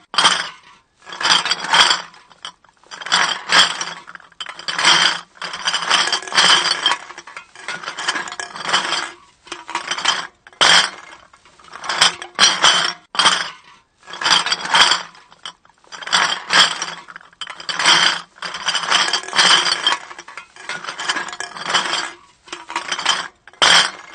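Empty glass bottles knocking and clinking together in repeated rattling bursts, each about a second long with short pauses between.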